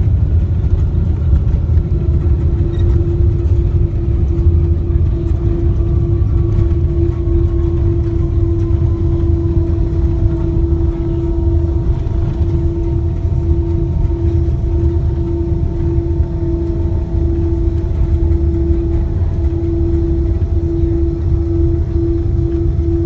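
Inside the cabin of a Boeing 777-200 rolling out after landing: a loud, steady low rumble of the wheels on the runway and the engines, with faint whining tones that slowly fall in pitch as the engines spool down. A steady hum sets in about two seconds in.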